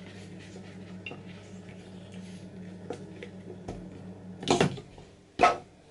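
Small clicks and taps from handling a plastic interdental brush and its cap, over a low steady hum that fades out about two-thirds through. Two louder short sounds come near the end.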